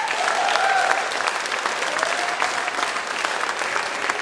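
Audience clapping and cheering, with a few shouted whoops, loudest in the first second.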